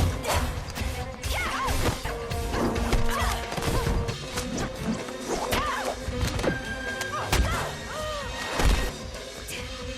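Fight-scene soundtrack: repeated hard punch and crash impacts, irregularly spaced, over an action-film score.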